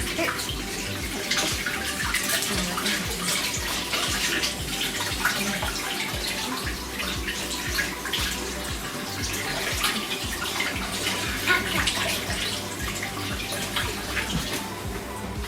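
Water running from a tap and splashing unevenly.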